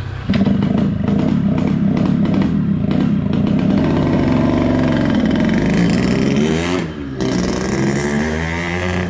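Yamaha RX-King's single-cylinder two-stroke engine revving up and down, with the raspy 'ngorok' (snoring) exhaust note it has just been tuned for. It starts suddenly, rises and falls in pitch through the second half, and dips briefly near the end.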